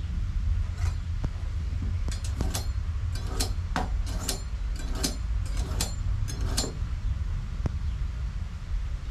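Metal utensils clicking and clinking at a wooden work counter, a quick run of about a dozen short strokes between two and seven seconds in, over a steady low rumble.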